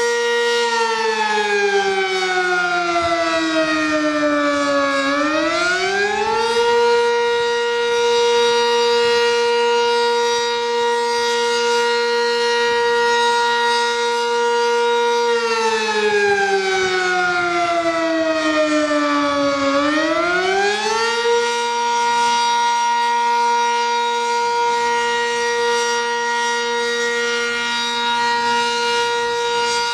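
Outdoor warning siren sounding a loud, steady tone that twice slides down in pitch over about four seconds and then climbs quickly back to the held note.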